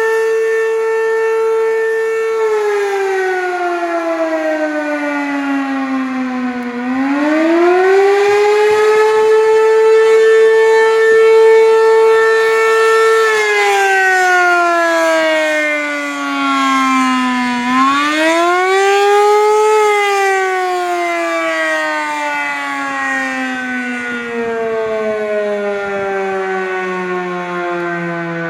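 ACA P-15 civil defense siren wailing. Its tone holds steady, falls away, rises back up and holds for several seconds, then falls again. After a short rise, the pitch slides slowly down for the rest of the time.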